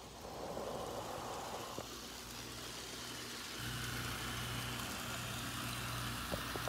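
Model trains running on the layout track: a steady electric-motor hum with wheel rumble and hiss, growing a little louder about halfway through as a train comes nearer, with a few faint clicks near the end.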